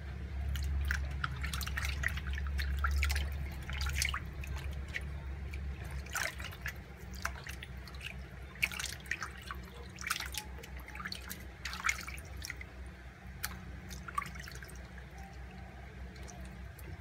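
Hands washing raw beef pizzle in a metal basin of water: irregular small splashes and drips as the pieces are rubbed and moved about.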